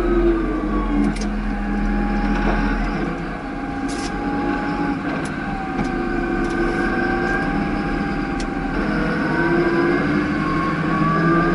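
Claas Arion 640 tractor's six-cylinder diesel engine and drivetrain running under way, heard from inside the cab. Its whine falls in the first second as the tractor slows, then rises again near the end as it picks up speed. A few sharp rattles come through the cab.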